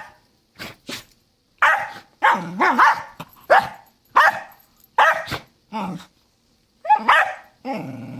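Two dogs barking back and forth at each other in play: a string of short, sharp barks, with a longer, lower drawn-out call near the end.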